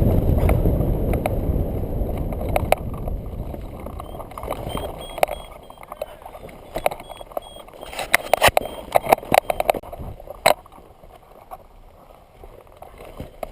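Wind rushing over the microphone, fading away over several seconds as the hang glider slows for landing. It is followed by a scatter of sharp clicks and knocks.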